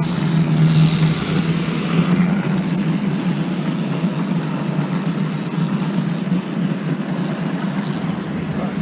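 Model railway locomotive running on the track with its train: a steady motor hum and the rumble of wheels on the rails.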